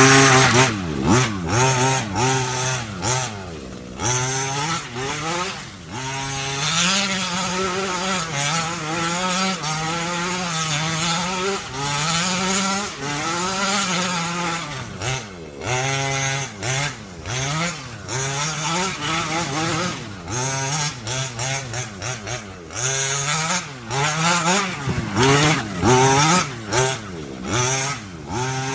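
30cc two-stroke engine of a 1/5-scale HPI Maverick Blackout MT gas RC truck, breathing through a DDM Racing expansion pipe, revved up and down over and over. Its pitch rises and falls with the throttle, with brief dips in between.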